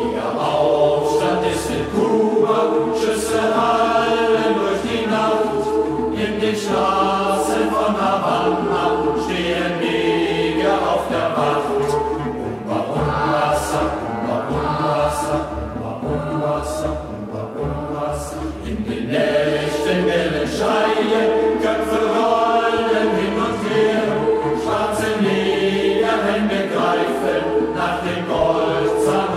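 A youth group singing together in a chant-like passage whose words the recogniser does not make out, with short, regular percussive strokes through it.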